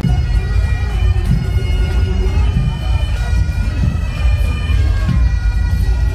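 Bagpipes playing a tune over their steady drones, with a steady low rumble beneath.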